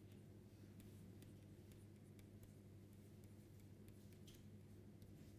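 Near silence: faint, scattered taps and scratches of a stylus writing on a pen tablet, over a steady low electrical hum.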